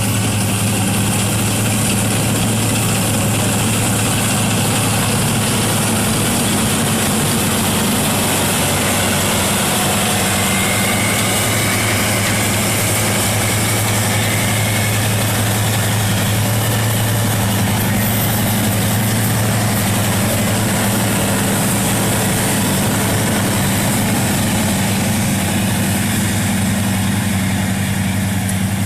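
Rice combine harvester running steadily: a constant low engine hum with a steady hiss from the machine over it.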